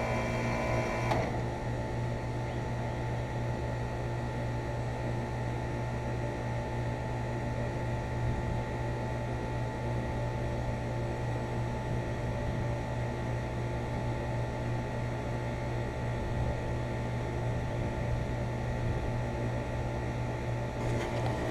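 2007 Guardian 4-ton central air conditioner outdoor unit running with a steady low hum while it shuts down. A higher whine cuts off about a second in, and the low hum carries on until it drops away at the very end.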